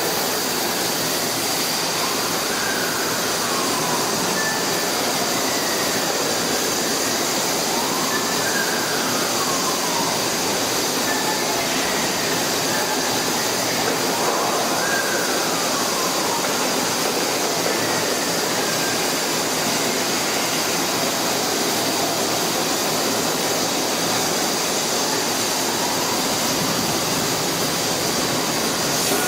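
CNC cutting table at work: a steady loud hiss, with the machine's drive motors whining up and down in pitch several times as the gantry speeds up and slows down.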